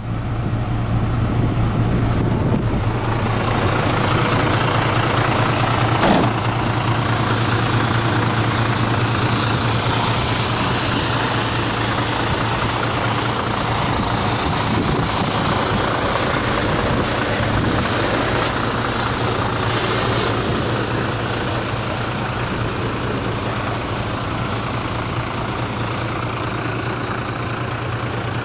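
Mitsubishi Fuso Fighter truck's diesel engine idling steadily, with one brief knock about six seconds in.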